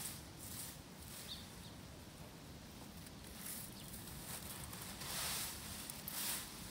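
Broom sweeping fallen leaves on pavement: a run of brushing swishes, the loudest two near the end.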